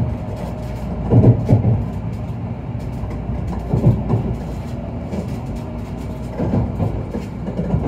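Sanyo Shinkansen train heard from inside the car as it approaches Hiroshima Station: a steady low running rumble with a few heavier thumps from the wheels over the track.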